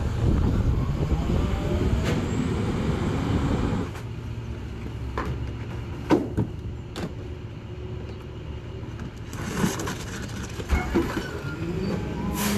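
Rear-loader garbage truck running its packer: the engine is revved under the hydraulic load for about four seconds, then drops back to idle. Sharp knocks and clattering follow as trash cans are tipped into the hopper, with a couple of short rushes of noise near the end.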